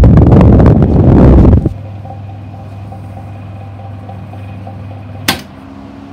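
1960s Pifco Whirlwind desk fan: for about the first second and a half its airflow rushes loudly against the microphone, then this stops suddenly, leaving the steady hum of its motor. Near the end comes one sharp click of a piano-key speed button being pressed.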